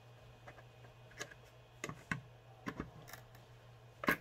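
Scattered light clicks and taps from hands handling a computer fan screwed into a 3D-printed plastic frame, with a louder click just before the end. A faint steady low hum runs underneath.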